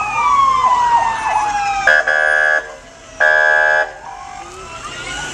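Fire truck siren wailing, falling slowly in pitch, then two loud horn blasts about a second apart, after which the siren starts rising again near the end.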